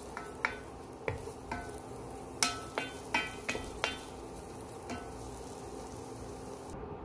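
Wooden spatula knocking and scraping against a stone-coated nonstick pot while scrambled egg fries with a soft sizzle. The knocks come irregularly, about ten in the first five seconds, each with a brief ring of the pot.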